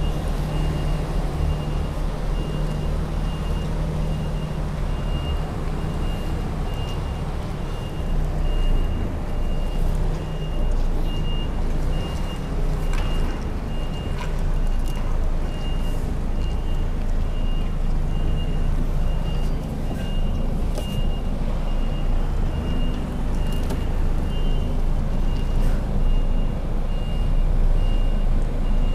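Tractor-trailer truck reversing slowly: its reversing alarm beeps at an even rate over the steady low running of the diesel engine, with a few short clicks now and then.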